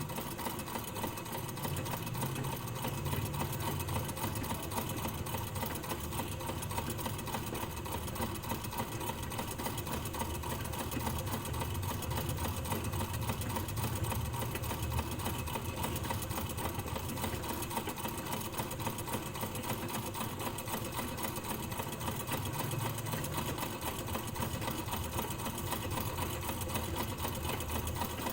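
Sewing machine running continuously, a steady mechanical hum with a rapid stitching rhythm and no pauses.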